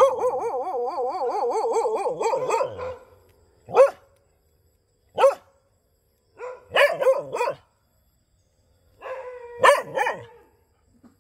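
Dog barking: a long, wavering, drawn-out cry for about the first three seconds, then single barks and short runs of barks with pauses between, the last run near the end.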